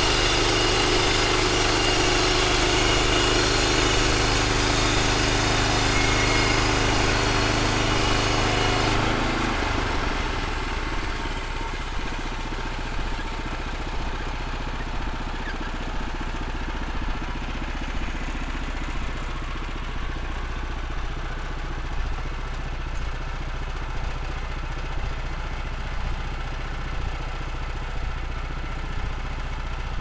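Gasoline engine of a Woodland Mills portable bandsaw mill running at high speed, then throttled back about nine seconds in and idling steadily after that.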